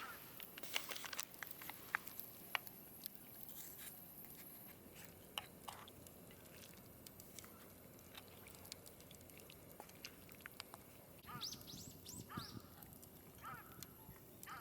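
A bird calls three times near the end, each call a quick sweeping note, over faint outdoor quiet. A few sharp clicks come in the first few seconds.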